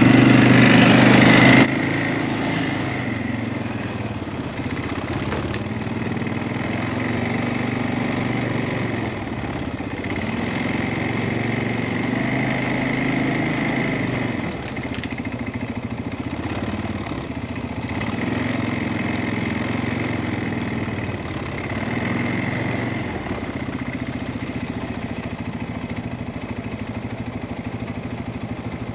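CFMOTO ATV engine running at low trail speed, swelling and easing every few seconds with the throttle; it is louder for the first couple of seconds, then drops to a steadier level.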